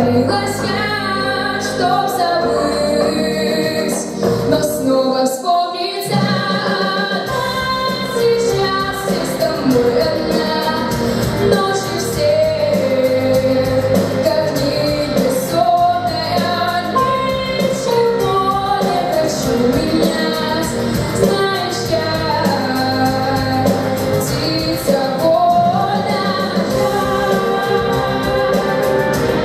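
A girl sings a song solo with musical accompaniment. The low end of the accompaniment drops out briefly about five seconds in, then returns.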